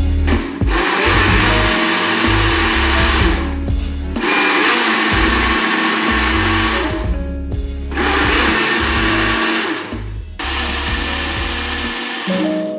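Electric countertop blender running at speed, puréeing grapes, apples and oranges into a smoothie. The motor noise breaks off briefly three times and picks up again, over background music.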